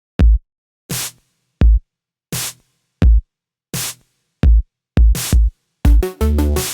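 Electronic background music from a drum machine: a deep kick drum alternates evenly with a sharp, hissy hit, with a quick double hit near the end. About six seconds in, a bass line and synth melody come in.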